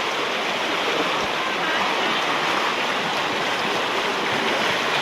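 Steady rush of a fast-flowing forest stream.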